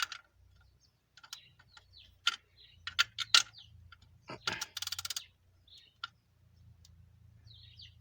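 A wrench clicking and knocking against metal as a bolt is tightened. There are scattered sharp clicks, and a quick run of rapid clicking about halfway through.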